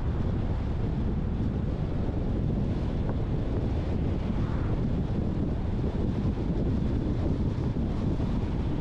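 Steady low rumble of road and wind noise from a moving car, with wind buffeting the microphone.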